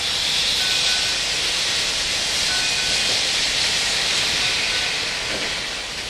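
Steady, loud hiss of a jet of steam blowing out low beside the driving wheels of Valley Railroad 1647, a Chinese-built steam locomotive, with faint brief whistling tones in it.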